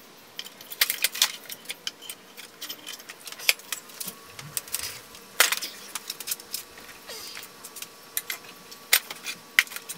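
Scattered light metallic clinks and taps as metal parts and tools are handled, with a few sharper knocks, the loudest about five and a half seconds in and again near nine seconds.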